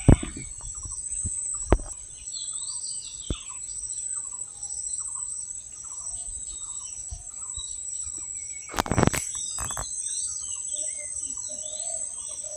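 Rural field ambience: a steady high-pitched insect drone with birds chirping again and again. A few sharp clicks come in the first few seconds, and a short, loud, noisy burst comes about nine seconds in.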